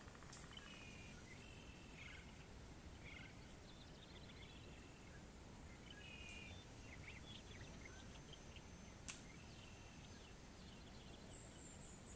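Quiet forest ambience with small birds calling: short whistled phrases and quick chips, several times over. There is a single sharp click about nine seconds in.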